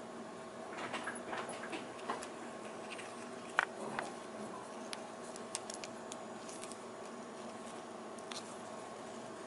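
Faint scattered light clicks and taps, bunched in the first four seconds and again around five to seven seconds, over a steady low hum.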